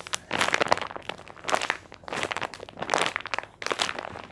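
Plastic packaging crinkling and crackling as it is handled, in irregular clusters of crackles.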